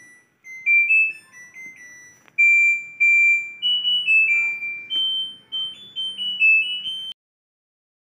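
LG washing machine's control-panel buzzer playing its electronic beeping melody: a tune of single high notes that stops abruptly about seven seconds in.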